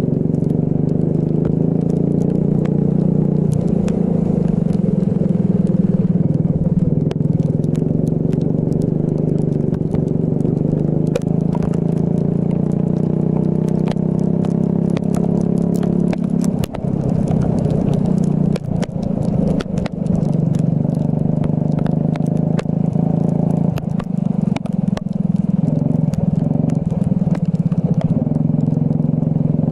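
Racing kart engine running hard on a wet track, its note mostly steady, easing off briefly several times past the middle of the lap section before pulling again, with scattered sharp ticks over it.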